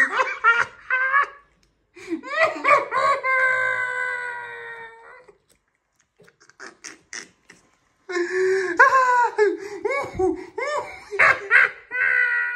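A woman's wordless vocal reaction to a scratch card that has not won: short laugh-like bursts and long, slowly falling wails. A few soft clicks come in a pause about six to seven seconds in.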